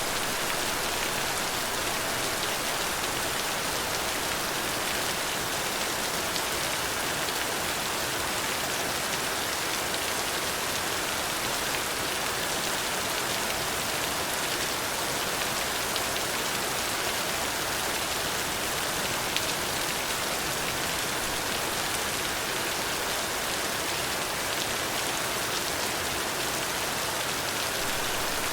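Steady rain falling on a surface, an even hiss of many drops with a few faintly distinct drop ticks.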